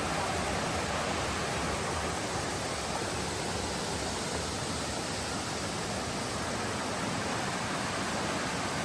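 Steady rush of cascading waterfall water, an even hiss with no breaks.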